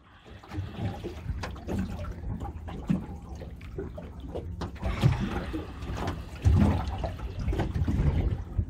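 Choppy bay water lapping and slapping against a small boat's hull: irregular splashes over a low rumble, getting louder in the last couple of seconds.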